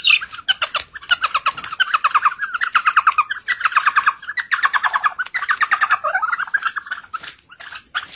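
A partridge calling: a fast run of chattering, chuckling notes, about ten a second, that goes on for about seven seconds and then breaks off into a few scattered notes near the end.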